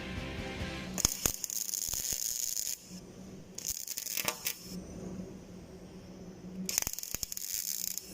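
Metalwork on a steel shovel: three bursts of hissing, crackling noise, each a second or two long, with sharp clicks in them, over a steady low hum.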